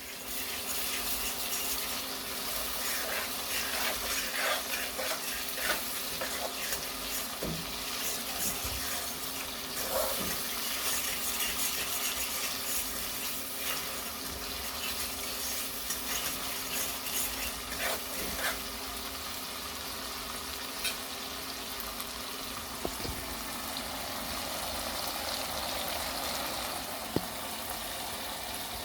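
Rain falling steadily, a dense crackling hiss of drops.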